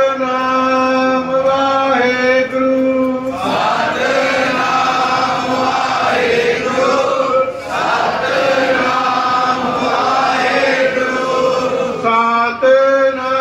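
Sikh devotional chanting by male voices. Steady held notes open the chant, many voices chant together through the middle, and the single steady line returns near the end.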